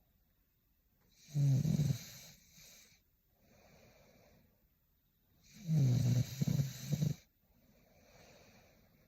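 A woman snoring in her sleep: two loud snores about four seconds apart, with softer breaths between them.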